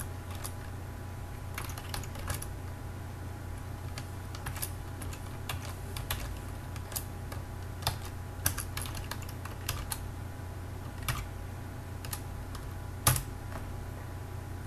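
Computer keyboard keys clicking as a line of code is typed, in short irregular runs with pauses and one louder keystroke near the end, over a low steady hum.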